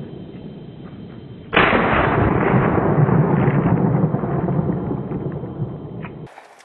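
Over-under shotgun fired once, about a second and a half in: a sudden loud blast followed by a long rumbling tail that slowly fades over several seconds.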